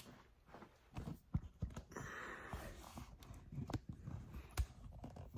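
Scattered light knocks, clicks and rustling from handling as a laptop and camera are moved about on a workbench, with a short hiss about two seconds in.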